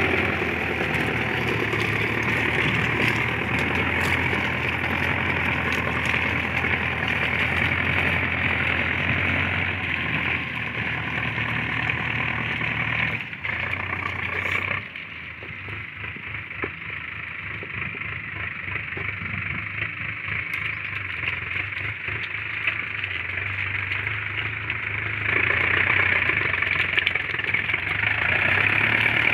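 Sonalika DI-750 tractor's diesel engine running steadily under load while pulling a three-bottom plough through dry soil. Loud and close at first; about halfway through it drops to a quieter, distant run, then grows louder again near the end as the tractor comes back toward the microphone.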